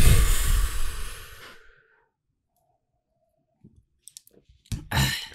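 A man's loud breath out into a close microphone right after downing a shot of alcohol, lasting about a second and a half, then a short cough near the end.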